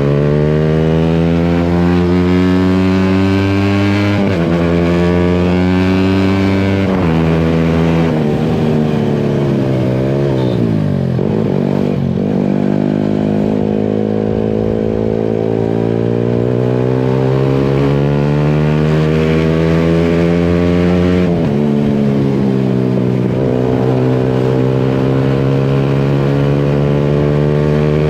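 Yamaha MT-15 single-cylinder engine through an aftermarket Akrapovic exhaust, accelerating on the road. Its pitch climbs and drops sharply at each upshift, about four and seven seconds in and again around twenty-one seconds. It eases off with the pitch falling near the ten-to-twelve-second mark, then pulls up through the gears again.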